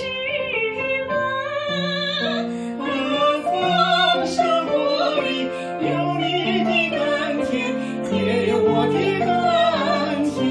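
A woman singing a Chinese song into a microphone over an accompaniment of held chords that change about once a second.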